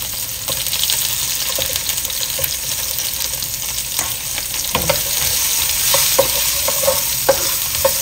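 Oil sizzling steadily in a wok around frying ginger slices and scallion pieces, with small pops and ticks that grow more frequent in the second half.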